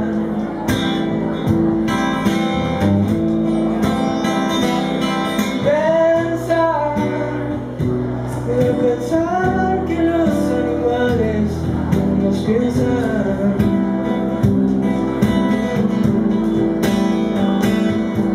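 Acoustic guitar strummed in a steady rhythm, with a man singing over it, his voice sliding up and down in pitch, most clearly in the middle.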